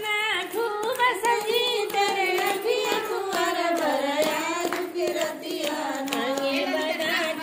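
Women singing a traditional wedding folk song together, clapping their hands in time with the singing.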